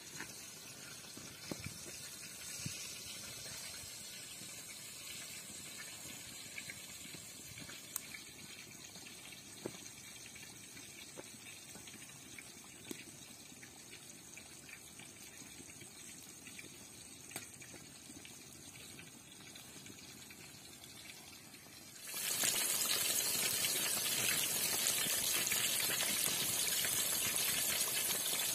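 Faint hiss with scattered small pops, then about three quarters of the way through a sudden jump to a loud, steady sizzle: flour-coated chicken pieces deep-frying in hot oil.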